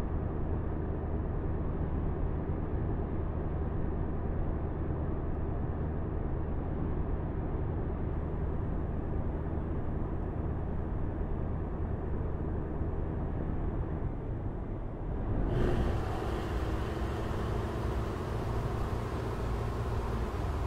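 Steady low engine drone and road noise inside the cabin of a 2023 Cadillac Escalade V, its supercharged 6.2-litre V8 holding an even cruising speed. About fifteen seconds in the sound cuts to the outside, where the SUV runs along with steady tyre and wind noise after a brief swell.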